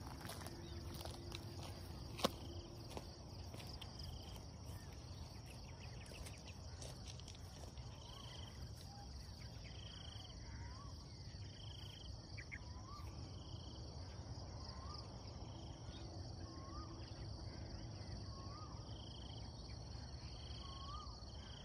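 Morning countryside ambience: a steady high insect drone over a low rumble. From about eight seconds in, a bird repeats a short rising call every second and a half or so, with a higher short chirp repeating about once a second. A single sharp click comes about two seconds in.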